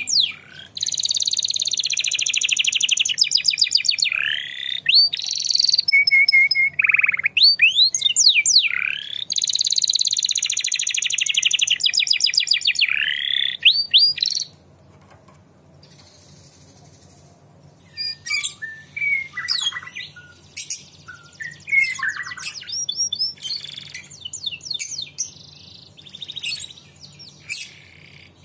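Domestic canary singing: long, fast rolling trills and sweeping whistled notes for about the first fourteen seconds, then, after a short lull, shorter scattered chirps and notes.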